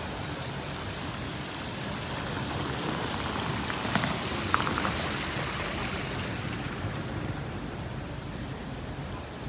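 Water running and splashing over the low weirs of a shallow stepped fountain pool: a steady rushing hiss that grows a little louder in the middle. A sharp click and a short rattle come about halfway through.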